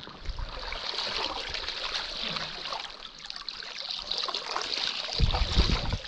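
Creek water splashing and trickling, an uneven hiss with many small splashes, with a few loud, dull low bumps near the end.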